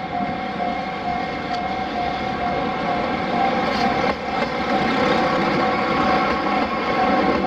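Level-crossing warning bell ringing steadily as a train approaches; the train's running noise grows louder from about three seconds in.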